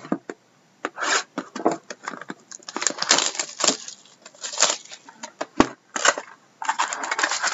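Plastic shrink wrap being stripped off a sealed trading-card hobby box, crinkling in irregular bursts, then the box's cardboard lid being torn open. There is one sharp knock about three-quarters of the way through.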